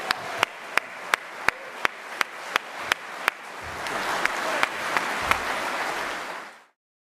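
Audience applauding in a hall, with one clapper close to the microphone standing out in an even beat of about three claps a second while the applause swells. The sound cuts off abruptly near the end.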